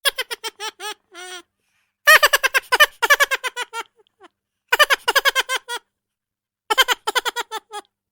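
High-pitched, cartoonish giggling laughter sound effect: quick 'ha-ha-ha' pulses, each dropping slightly in pitch, coming in five short runs with brief pauses between them.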